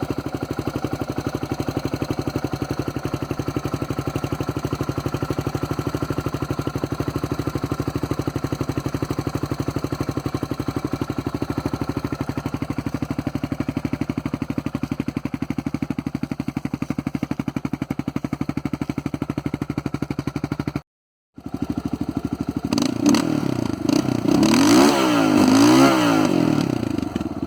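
Yamaha Raptor 660R ATV's single-cylinder four-stroke engine idling steadily. After a short break, the engine is revved up and down a few times near the end.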